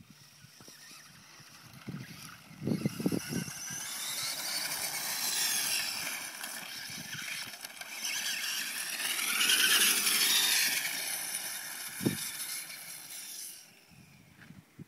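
Venom VMX 450 remote-control dirt bike's brushless electric motor whining as it rides, the pitch rising and falling as it speeds up and slows, loudest about ten seconds in, then cutting off shortly before the end. A few low thumps come near the start and about twelve seconds in.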